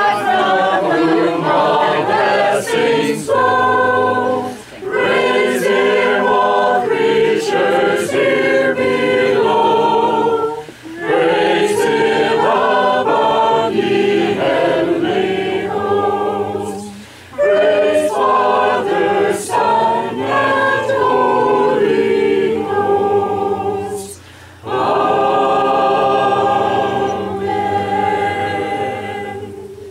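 A small mixed group of men and women singing together a cappella, in long sung phrases with brief breath pauses between them.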